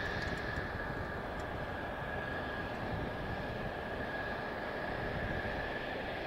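Mitsubishi F-2B's single F110 turbofan engine running at low power on the ground: a steady high whine over a low rumble.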